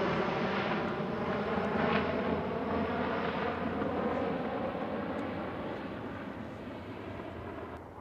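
C-130 Hercules four-engine turboprop transport droning overhead, a steady layered hum that gradually fades as the aircraft moves away.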